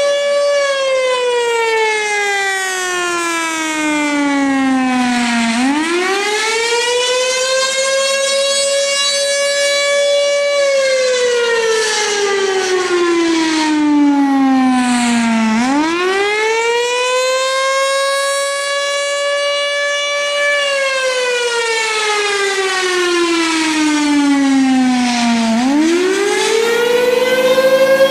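Federal Signal Thunderbolt 1000 warning siren sounding a single-tone wail. The pitch slides slowly down over about five seconds, then climbs quickly back up and holds for a couple of seconds before falling again. This repeats about every ten seconds, three times over.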